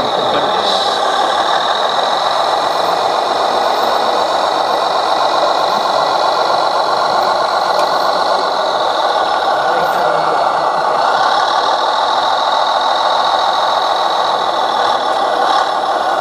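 Radio-controlled model truck running: a steady mechanical engine-like sound with a high whine that fades away about ten seconds in and then comes back.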